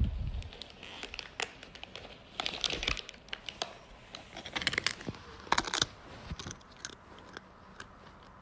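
A cat rooting in a plastic tortilla-chip bag: the bag crinkles and rustles in irregular crackly bursts. A low thud comes right at the start.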